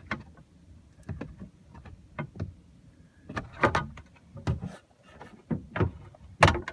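Long-reach lockout rod tapping and scraping at a car's interior door panel and power-lock switch: a string of irregular clicks and knocks, loudest about three and a half seconds in and near the end. The presses don't work the locks.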